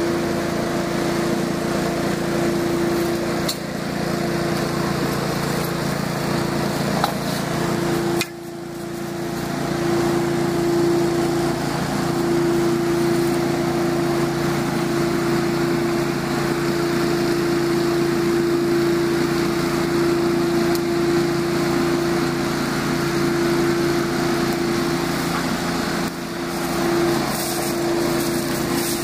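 A small engine runs at a steady, unchanging pitch throughout, dipping briefly in level about eight seconds in.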